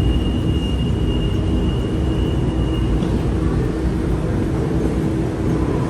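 Steady low rumble of a running vehicle, with a thin high whine that stops about three seconds in.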